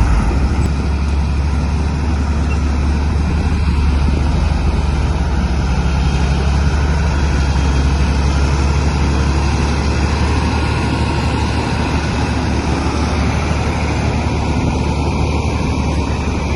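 Bulldozer's diesel engine running steadily with a deep, constant drone.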